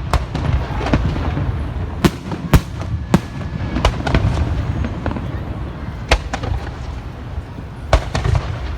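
Fireworks going off: a string of sharp bangs and pops at irregular intervals over a steady low rumble.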